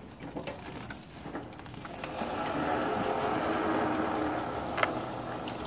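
Power wheelchair's electric drive motors running as it tows a lawn-mower chassis by rope, with the chassis' small tyres rolling on concrete; the sound picks up about two seconds in. One sharp click near the end.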